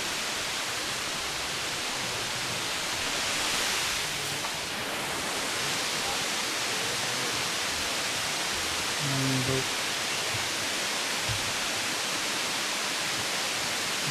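A waterfall rushing steadily: a dense, even hiss that swells slightly about four seconds in.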